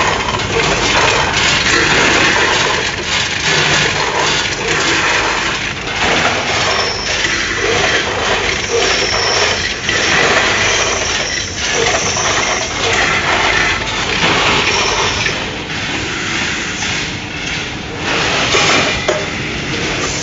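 Multihead weigher running with gummy candy: candy clattering over the stainless steel pans into the hoppers and the hopper gates clacking open and shut, a dense, continuous rattle of clicks and knocks.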